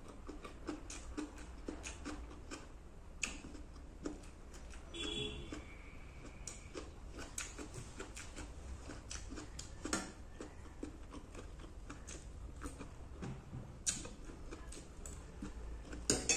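Quiet eating sounds: irregular small clicks and smacks of chewing and of fingers picking at fried fish on a plate. A brief high squeak comes about five seconds in.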